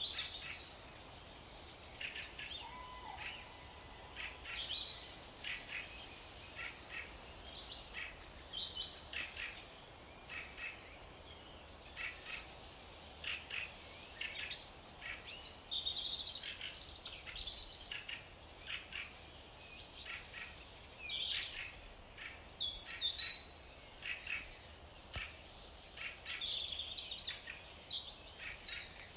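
Several songbirds chirping and singing, with short, high calls and quick descending notes overlapping irregularly.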